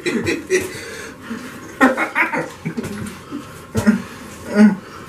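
Two men chuckling and laughing in short bursts, with a few brief muffled throat sounds near the end as one holds a hand over his mouth.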